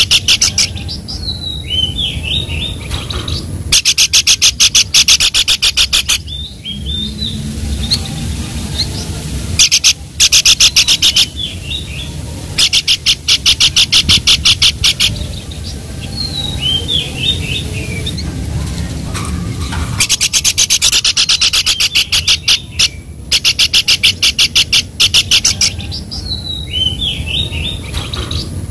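Songbird calling: several bursts of rapid, evenly repeated high chattering notes, each lasting one to three seconds. Between the bursts come short, falling whistled phrases.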